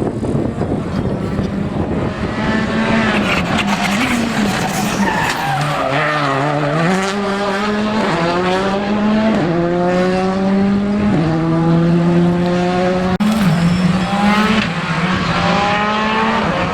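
Rally car engine at full stage pace: revs fall away as it slows for a bend, then it accelerates hard through several quick upshifts, the pitch climbing and dropping back at each shift, with a sharp crack near the end.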